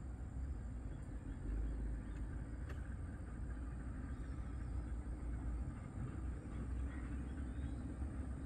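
Steady low outdoor rumble, with a few faint high chirps about four seconds in.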